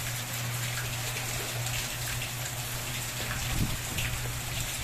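Heavy rain falling steadily, spattering on the ground and walls, with a few louder splashes about three and a half seconds in.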